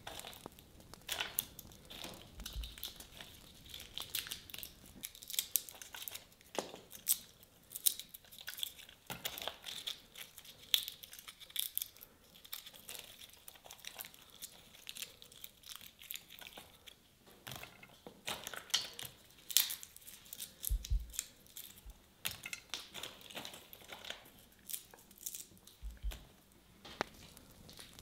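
Irregular crinkling and crackling handling noises: a string of sharp clicks and short rustles at uneven intervals.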